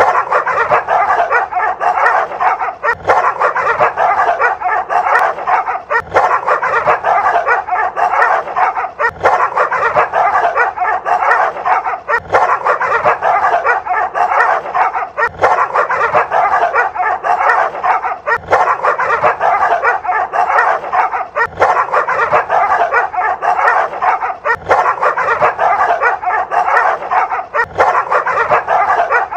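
Dogs yapping and barking rapidly and without pause, the barking falling into a cycle that repeats about every three seconds.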